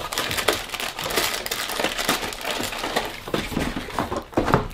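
Crinkling and rustling of plastic snack wrappers and the cardboard snack box being handled, with many small sharp crackles.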